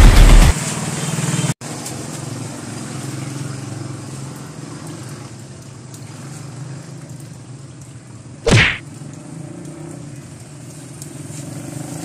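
A loud sound cuts off about half a second in. A steady low hum follows, with one brief whoosh about eight and a half seconds in.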